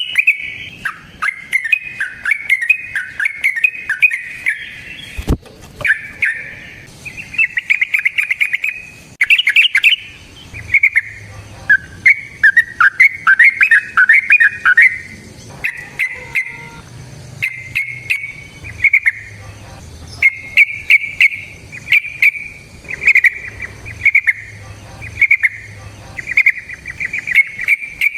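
Yellow-vented bulbul (trucukan) singing its long, bubbly warbling song in repeated phrases, with sharp clicks scattered throughout and one loud click about five seconds in.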